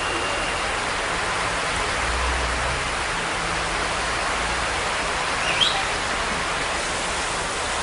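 Heavy rain pouring steadily, a constant hiss of rain and runoff water on a flooded street. A brief high chirp cuts through about five and a half seconds in.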